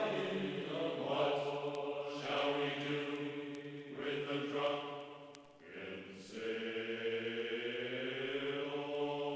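Choral chanting: long, sustained sung chords that change every second or two, with a short dip about five and a half seconds in.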